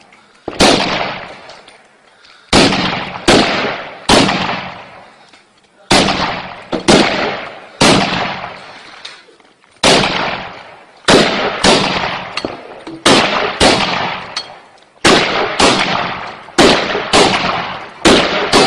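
Gunfire: about twenty loud single shots at irregular spacing, roughly one a second, some in quick pairs, each ringing out in a long echo that fades over a second or more.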